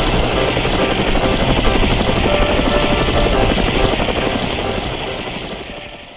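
Helicopter rotor chopping steadily, fading away near the end.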